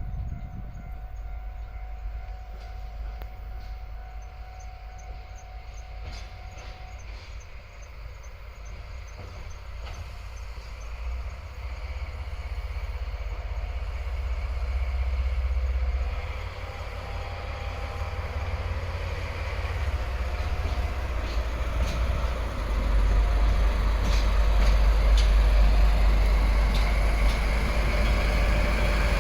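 DE10 diesel-hydraulic locomotive and its V12 diesel engine running as it draws nearer, a low rumble that grows steadily louder and is loudest over the last several seconds.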